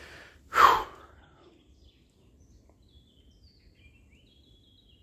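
Faint bird calls, thin high chirps through the second half, after a short loud burst of noise about half a second in.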